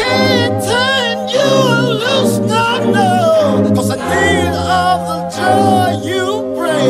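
Background music: a song with a sung vocal line over steady lower notes that change every second or two.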